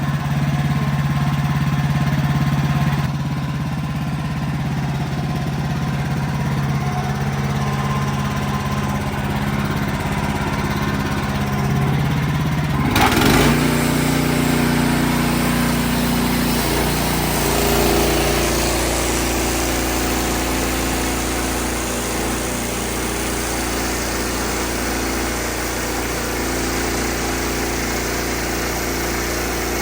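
Wood-Mizer LX55 portable band sawmill running steadily. About thirteen seconds in the sound changes abruptly, and from then on a hiss spreads across the range over the engine tone.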